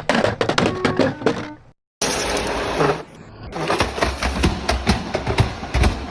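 Robot vacuum knocking and clattering against hard surfaces, a dense run of sharp knocks and rattles. It breaks off abruptly about two seconds in, then more knocking and rattling follows.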